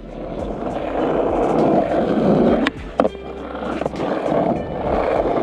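Skateboard wheels rolling on rough asphalt with a steady rumble. A little under three seconds in come two sharp clacks of the board about a third of a second apart, and the rolling picks up again soon after.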